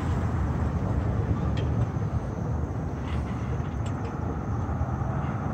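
Steady low outdoor rumble of traffic on the busy road alongside, mixed with wind, with a few faint light ticks.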